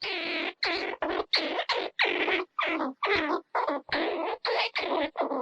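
Squirrel calling in a fast string of short, raspy barks, nearly three a second.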